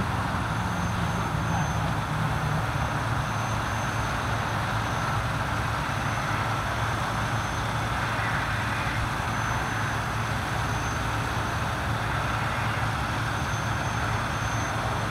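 Steady low hum of an idling engine under a constant wash of noise.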